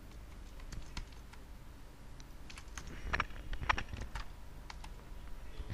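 Scattered light clicks of a computer keyboard and mouse while lines of code are selected, copied and pasted. A few sharper clicks come in the middle.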